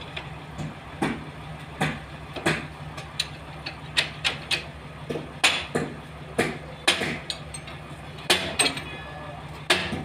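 Sharp, irregular knocks, one or two a second, like hard blows on wood or metal, over the steady low hum of running sawmill machinery.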